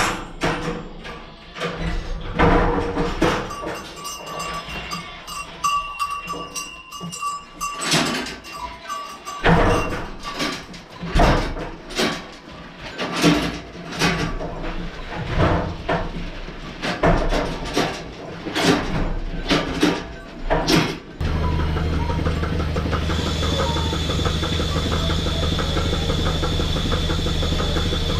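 Dairy goats clattering into a milking parlour: a long run of irregular knocks and clanks from hooves on the raised platforms and the metal stall rails. About 21 seconds in, the milking machine's vacuum pump starts up, and a steady hum with a hiss takes over.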